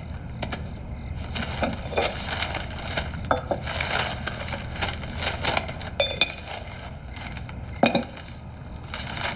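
Paper rustling, with light taps and clinks of small objects on a desk. The sharpest clink, about eight seconds in, is a porcelain cup being handled.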